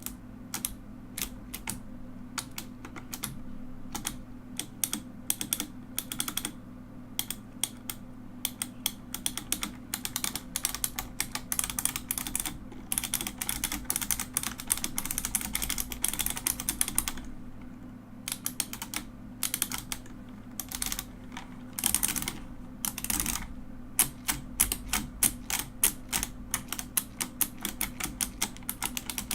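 Mechanical keyboard being typed on, its keys clacking in irregular runs of fast strokes with short pauses between, over a steady low hum.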